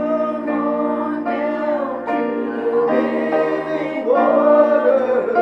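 A male vocalist singing a slow gospel song with piano accompaniment, holding long, drawn-out notes.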